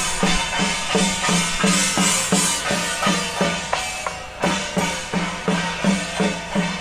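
Music with a fast, steady drum beat, about four strokes a second, and stretches of bright high-pitched hiss that recur every few seconds.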